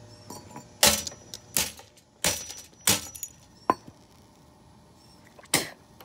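Six sharp cracks, irregularly spaced, the loudest about a second in, some with a short metallic ring. A faint electrical hum fades out just before the first crack.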